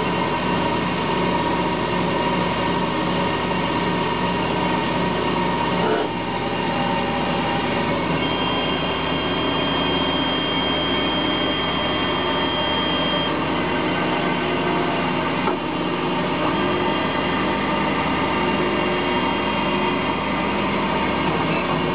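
Emco Turn 120 benchtop CNC lathe running, a steady mechanical whine made of many tones. A higher steady tone joins about 8 seconds in and holds for about five seconds, and the sound shifts briefly twice.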